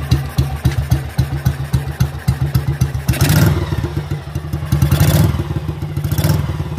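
Kawasaki 250 Meguro SG's single-cylinder four-stroke engine idling with an even, rapid beat, briefly revved up three times, about three, five and six seconds in. The engine has just been repaired after running poorly.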